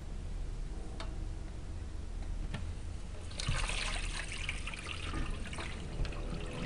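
Water splashing and trickling as a thawed feeder rat is lifted by the tail out of a bowl of water, strongest from about three seconds in for a couple of seconds, over a steady low hum.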